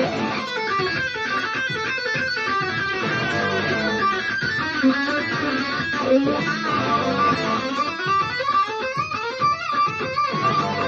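Guitar improvising blues lead lines over a dirty blues backing track, with a steady beat underneath.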